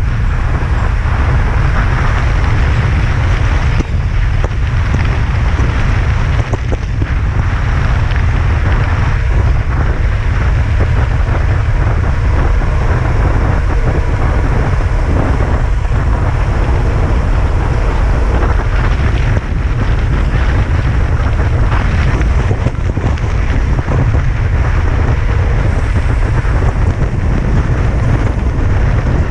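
Wind buffeting the camera microphone on a bicycle riding fast on asphalt: a loud, steady low rumble with a rush of air and tyre noise over it.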